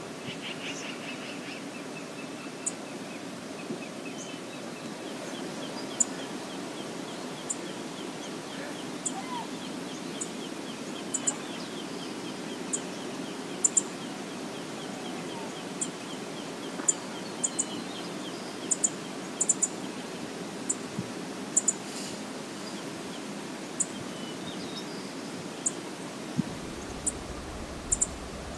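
Steady rush of river water, with short high-pitched ticks every second or so and faint bird twittering in the first half.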